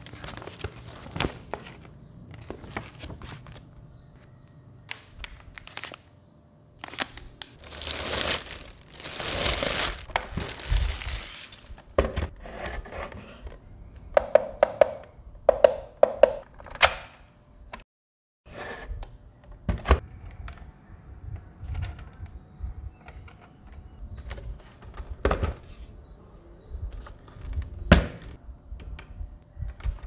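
Handling noise from a small plastic desktop evaporative air cooler and its packaging: knocks and thunks as the plastic unit is moved and set down, and a few seconds of plastic-bag crinkling about a quarter of the way in. Near the middle, a handful of short beeps sound as the power button on top is pressed.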